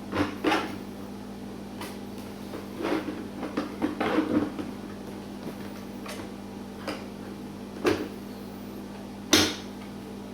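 Irregular knocks and clunks of parts being handled, about ten in all, with a cluster a few seconds in and the loudest knock near the end, over a steady low hum.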